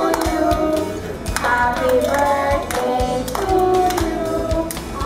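Group of young children, joined by women's voices, singing a birthday song together, with hands clapping along in time.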